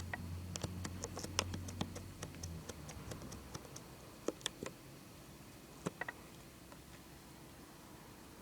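A 2007-era CPAP machine's low hum stops about two and a half seconds in. Over it and after it come small sharp clicks, several a second at first, then only a few scattered ones.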